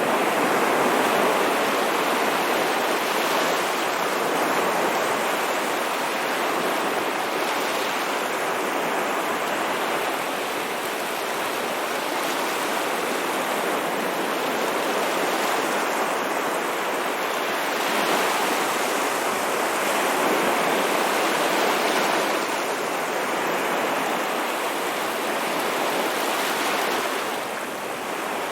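Ocean waves breaking and washing, a steady hiss of surf that gently swells and eases every few seconds.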